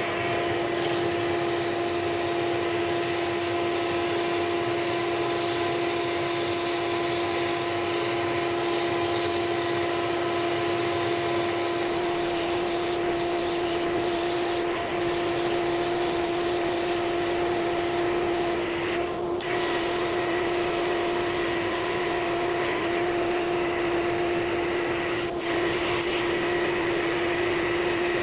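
Workshop dust extractor running steadily: an even rush of air under a constant motor whine.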